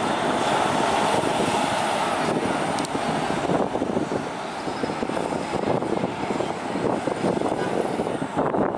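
Heavy trucks driving slowly past: the Western Star semi-tractor and a military truck, their diesel engines giving a continuous loud rumble and roar.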